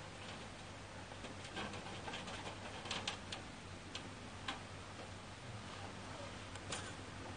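Scattered light clicks and clatters from handling a wire grill rack and foil over grilling mackerel. A low steady hum runs underneath.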